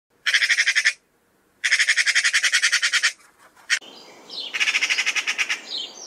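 Eurasian magpie chattering: three bursts of fast, harsh rattling notes, about a dozen a second, the middle burst the longest.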